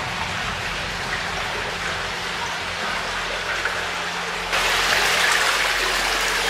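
Shallow stream water running along the floor of a stone-arched tunnel: a steady rushing hiss that suddenly gets louder about four and a half seconds in.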